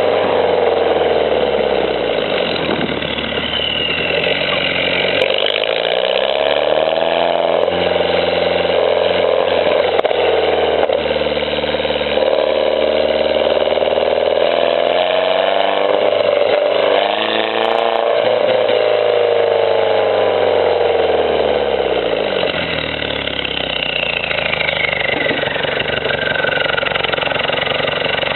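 Mini Cooper S JCW R56's turbocharged 1.6-litre four-cylinder engine, through an aftermarket exhaust, running with its revs swinging slowly. The revs drop over the first few seconds, climb again and hold higher for a while, sink low around two-thirds through, then rise once more near the end.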